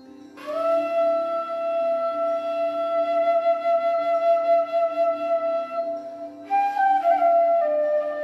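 Indian bamboo bansuri flute playing a slow melody over a steady low drone: it slides up into one long held note just under a second in and sustains it for about five seconds, then moves to a higher note that bends down to a lower held note near the end.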